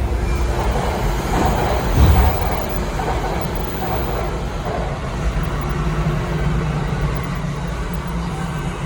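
Rinkai Line 70-000 series train running, heard from inside the car: a steady rumble of wheels on rail with the hum of its Mitsubishi IGBT-VVVF inverter and traction motors, and a thump about two seconds in. This set is singled out for an unusual running noise.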